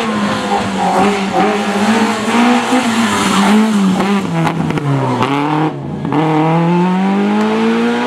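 Racing car engine at high revs: the revs fall as the car slows, the engine note cuts out for a moment about six seconds in, then it climbs steadily again as the car accelerates away.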